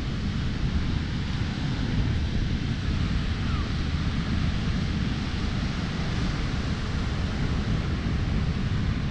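Wind buffeting the microphone, a steady rumble over the even hiss of surf on the beach.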